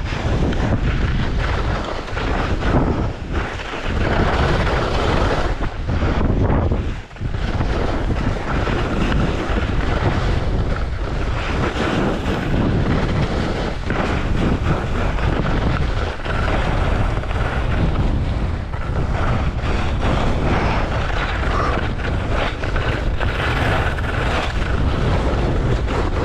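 Wind buffeting a GoPro's microphone: a continuous loud rumbling rush, strongest in the low end, with brief dips as gusts let up.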